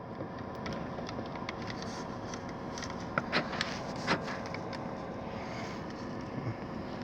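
Steady hum inside a 2010 Chevy Cobalt with a few light clicks about three to four seconds in.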